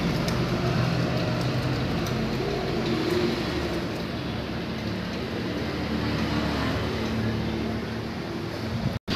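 A steady low mechanical drone, engine-like, over a background hiss, with a few faint clicks near the start.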